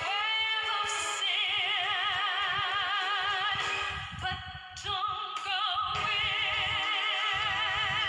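A woman singing long held notes with a wide, even vibrato over backing music, with a brief break a little past halfway before the next note.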